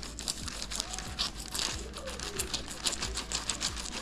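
Knife cutting into a whole blue tilapia, the blade crunching through its scales and flesh in a quick, irregular run of small clicks and crunches.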